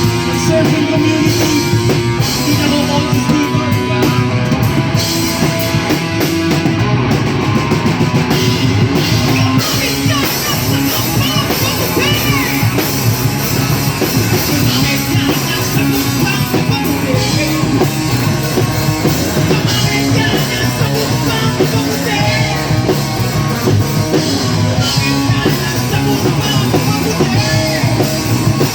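A live rock band playing loudly and without a break, drum kit and guitars to the fore.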